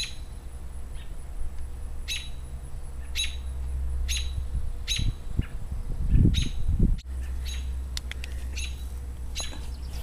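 A bird chirping, short sharp calls repeated about once a second. A brief low rumble sounds around the middle.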